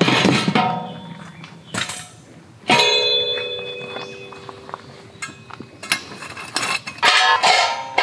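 Metal panels of a Hillsfield hexagonal fire pit clanking as they are taken out of their case and handled. About three seconds in, one panel is knocked and rings with a clear metallic tone that fades over a few seconds. More clinks follow near the end.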